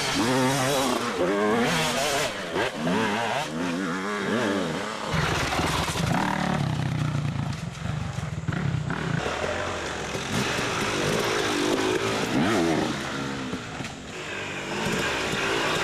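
Dirt-bike engines revving, the pitch rising and falling again and again as the throttle is worked, with a steadier low engine note for a few seconds in the middle.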